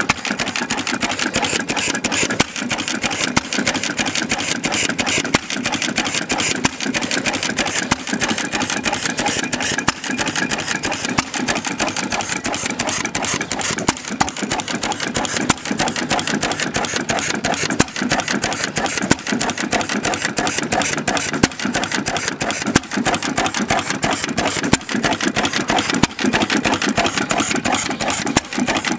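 Bamford 3 hp throttle-governed stationary petrol engine running with a fast, even mechanical beat and an occasional louder stroke every second or two. It is not running perfectly for a throttle-governed engine, which the owner thinks could be down to the carburettor settings.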